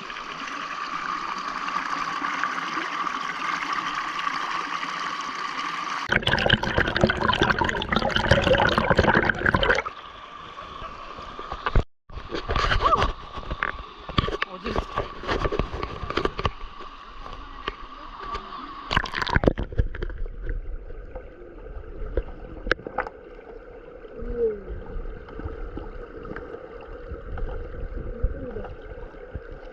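Valley stream water flowing over rocks, heard in several clips joined by abrupt cuts. A louder, choppier stretch comes about a fifth of the way in, and the sound turns quieter about two thirds in.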